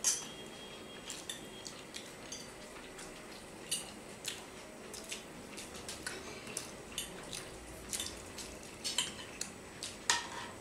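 Forks and spoons clinking and scraping on ceramic plates as people eat, in scattered light clinks, the loudest one right at the start.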